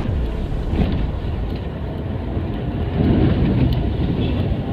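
Car driving on a wet road, heard from inside the cabin: a steady low rumble of engine and tyres, with a few faint clicks, as it drives into a road tunnel.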